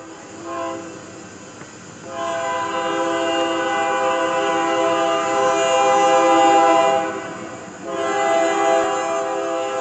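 Union Pacific diesel locomotive's multi-chime air horn: a short blast, then a long blast of about five seconds, then another long blast starting near the end, typical of a train sounding for a grade crossing.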